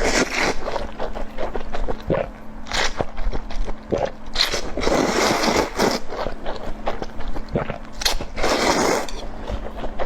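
A person eating close to the microphone: repeated bites and crunchy chewing, with two longer noisy stretches, one about halfway through and one near the end.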